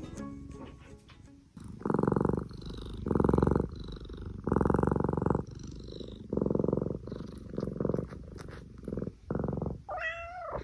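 Domestic cat purring loudly and close up, the purr swelling and dropping with each breath about once a second. Near the end the cat gives a short meow that rises and falls in pitch.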